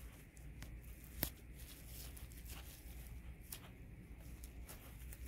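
Faint crinkling and crackling of a plastic freezer bag being gathered and twisted in the hands, with scattered small crackles and one sharper crack a little over a second in.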